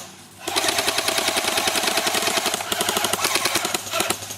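Airsoft gun firing one long full-auto burst of rapid, evenly spaced shots, starting about half a second in and lasting about three and a half seconds.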